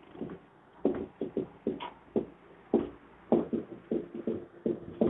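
Whiteboard marker squeaking against the board in a rapid series of short, pitched squeaks as letters are written, each stroke a separate squeak.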